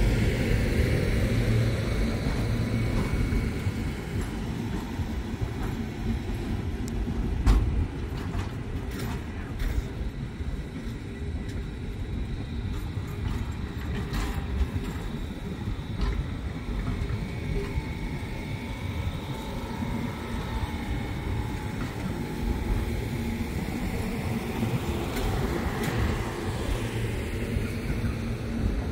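Passenger carriages of The Ghan rolling slowly past on departure: a steady low rumble of wheels on rails, with a few sharp clicks along the way.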